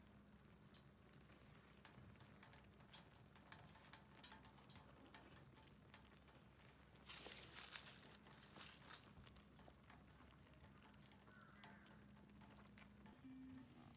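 Near silence: a faint low hum with scattered faint ticks and clicks, and a short rustle about seven seconds in.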